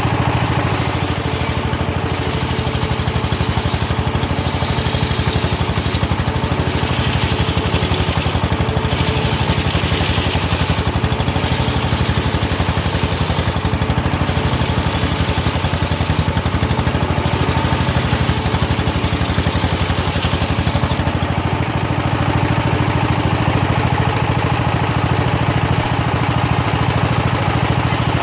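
A home-built engine-driven saw bench runs steadily with a constant low engine drone. A higher hiss comes and goes through the first half and fades out around two-thirds of the way in, as the circular blade rips hard teak.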